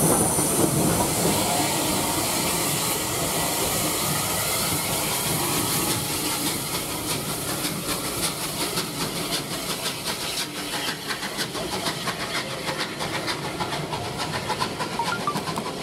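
Steam locomotive SR 34070 Manston, a Bulleid Battle of Britain class pacific, moving past close by with steam hissing, the sound fading as it draws away; a fast, even ticking comes in over the second half.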